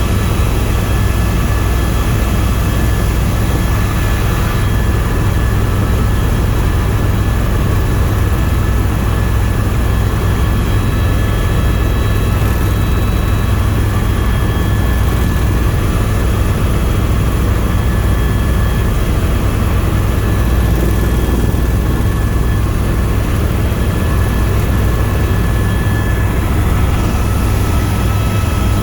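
Tour helicopter in flight: a steady, loud low rotor and engine drone with a thin, constant high turbine whine over it.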